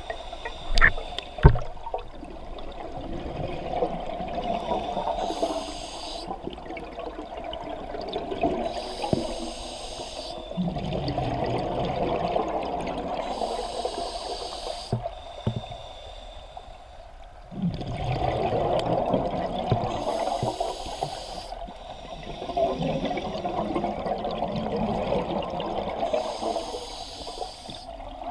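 Scuba diver breathing through an open-circuit regulator underwater: five hissing inhalations a few seconds apart, each followed by a long stretch of bubbling, gurgling exhaled air. A couple of sharp knocks sound about a second in.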